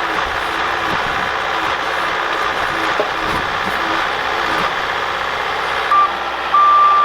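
Skid steer loader's engine running steadily under load, with its backup alarm starting to beep near the end as the machine reverses.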